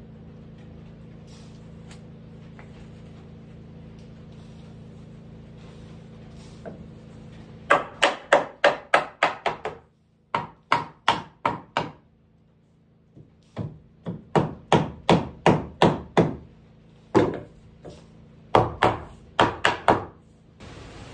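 Hammer blows on wood, struck in quick runs of about four a second. There are four runs with short pauses between them, starting about eight seconds in.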